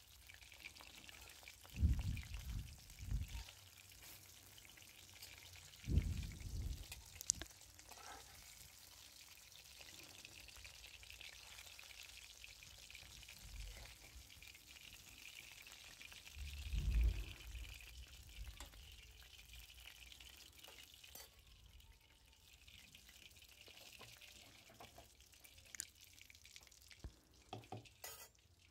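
Fish pieces shallow-frying in hot oil, a faint steady sizzle. A few low thumps of handling come about 2, 6 and 17 seconds in.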